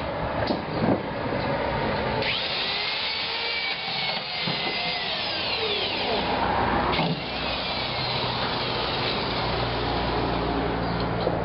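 A power tool running, its high whine gliding up and down in pitch, then a steadier low hum from about seven seconds in.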